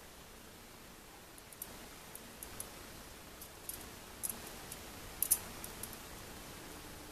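Pieces of a bent metal wire puzzle clicking and ticking against each other as they are worked by hand: scattered light clicks, with sharper ones a little past four seconds and the loudest just after five.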